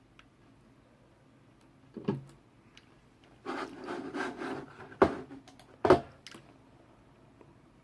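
Hands working the wires of a Cat5 cable: a knock, about a second of rubbing and rustling, then two sharp knocks.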